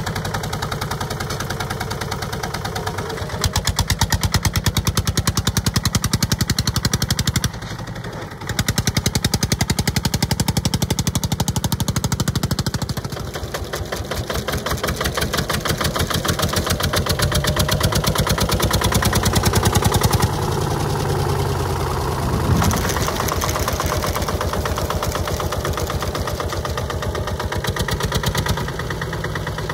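Porsche A111 tractor's air-cooled diesel engine running with a fast, even firing beat as the tractor drives and powers a sickle-bar mower. Its level rises and falls several times, with a brief dip about eight seconds in.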